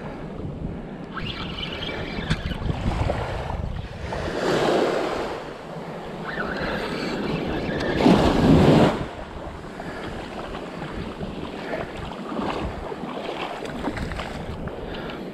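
Ocean surf washing onto a sandy beach, with wind buffeting the microphone. The rush swells and fades in waves, loudest a little past the middle.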